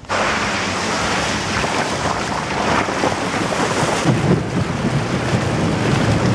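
Steady, loud rushing of a tall waterfall heard close up, mixed with wind and spray on the microphone. It starts abruptly, and a deeper buffeting rumble grows from about four seconds in as the camera nears the plunge pool.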